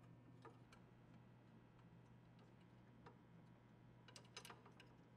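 Near silence: faint scattered clicks of a hand and tool on the saw's metal motor mount over a faint steady hum, with a short cluster of clicks about four seconds in as the arbor nut wrench is lifted away.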